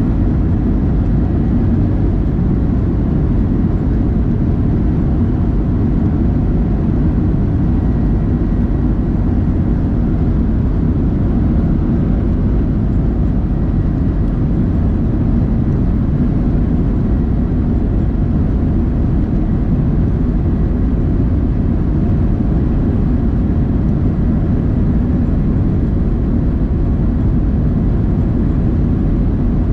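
Steady roar of a Boeing 737-700's CFM56-7B jet engines and airflow, heard from inside the passenger cabin.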